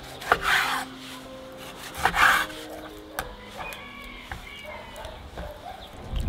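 Knife slicing through raw beef chuck on a wooden cutting board: two sawing cuts, about a second and a half apart.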